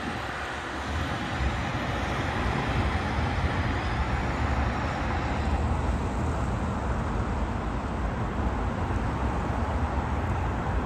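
Road traffic at a busy city intersection: a steady mix of car engines and tyre noise with a deep rumble underneath.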